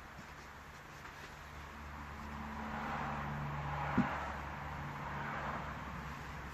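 A motor vehicle going past: a low engine hum that swells over a couple of seconds and fades again, with one light tap about four seconds in.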